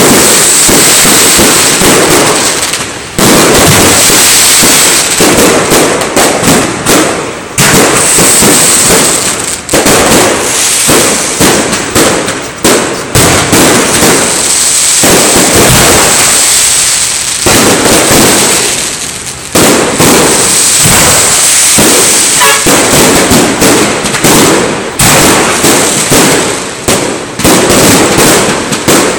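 A long, unbroken barrage of fireworks and firecrackers: dense, rapid cracks and bangs that run together, easing off only briefly a few times. It is loud enough to push the recording to its limit.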